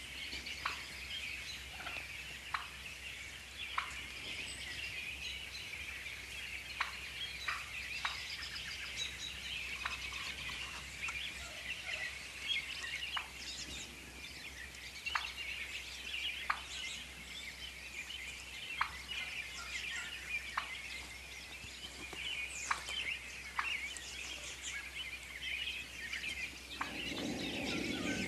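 Wild turkeys calling, gobbling among short sharp calls every second or two, over a steady high chatter of small birds.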